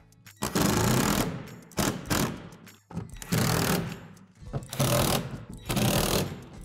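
Cordless drill-driver driving screws into plastic shed wall panels in several short runs of about a second or less, with brief pauses between them.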